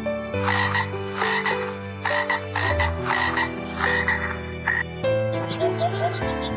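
A frog croaking: a series of about seven short, rasping calls, roughly one every 0.7 seconds. About five seconds in, the croaking gives way to a crested lark's rapid, high twittering song.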